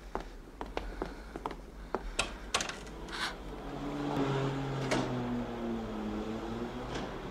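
Footsteps on a hard hallway floor, then a door latch clicking about two seconds in. After that comes a long, low creak that slowly falls in pitch as the wooden door is pulled open.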